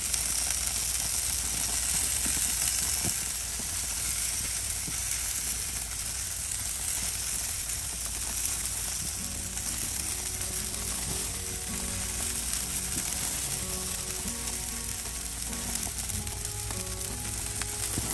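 Beef burger patties sizzling steadily on a hot grill grate, with faint background music entering about halfway through.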